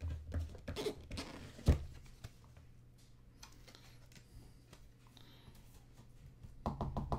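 Hands handling a trading card and a clear plastic holder: light rustling and clicks of plastic as the card is slid into the holder, with one sharp tap about two seconds in.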